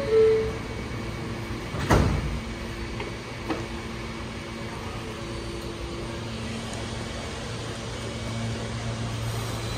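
New York City subway car's two-note falling door chime, then the sliding doors closing with a sharp knock about two seconds in. After that the standing train gives off a steady hum.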